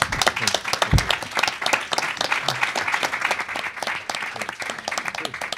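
Audience applause: many hands clapping together, thinning out near the end. There is a single low thump about a second in.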